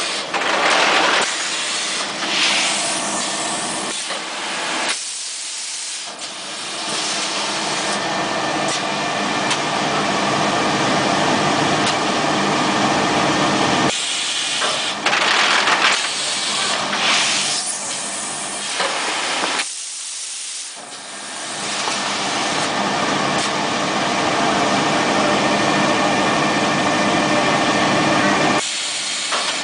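Cup vacuum forming machine running: a steady mechanical noise with faint hum, broken several times by loud hisses of compressed air.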